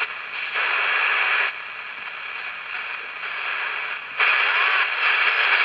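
Candle pocket AM transistor radio hissing with static between stations as it is tuned in search of a weak station, the hiss jumping louder and quieter a few times. A faint short whistle comes through near the end.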